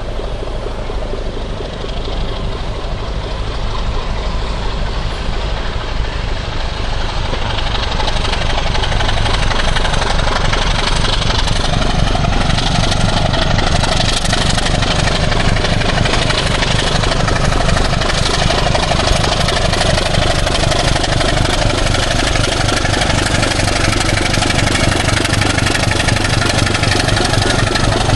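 Heavy diesel locomotive engine running steadily at low revs, growing louder from about eight seconds in.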